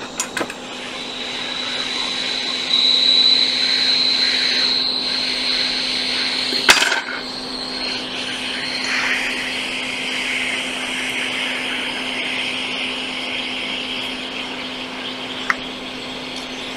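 Hot-air rework station blowing steadily: an airy hiss with a faint whistle and a low hum, heating a shorted capacitor on a MacBook logic board to desolder it. A sharp click about seven seconds in.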